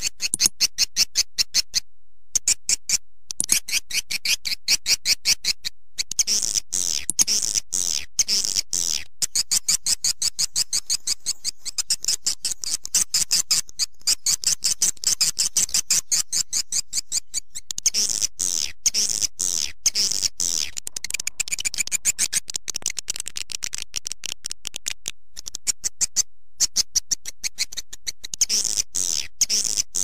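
Swiftlet lure call recording: rapid trains of high, sharp swiftlet chirps and twitters, repeated phrase after phrase with a few short breaks, as played in a swiftlet house to draw the birds in.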